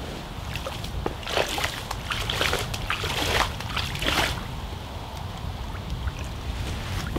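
River water splashing and sloshing as an object is plunged and swished in it by hand: about four splashes roughly a second apart, then quieter. A steady low wind rumble runs underneath.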